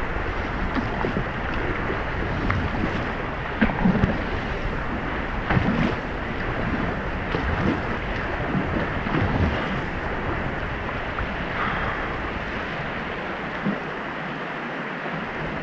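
River current rushing and slapping around a kayak's hull through a choppy riffle, with splashes from paddle strokes now and then. Wind rumbles on the microphone and eases near the end.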